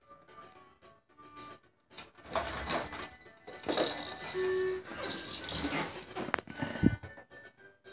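Plastic baby activity jumper and its tray toys rattling and clattering as the baby bounces, loudest from about two seconds in, with a thump near the end. Faint short electronic toy tones run underneath.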